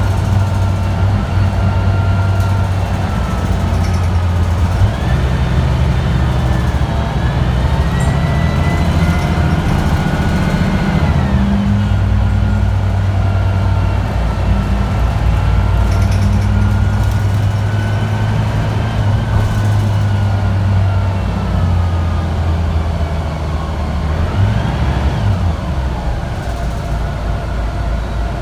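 Cabin sound of a moving Mercedes-Benz O405G articulated bus: a steady, loud diesel drone with a high whine over it that climbs and falls with road speed. The whine rises about five seconds in, drops away around the middle, and rises briefly again near the end.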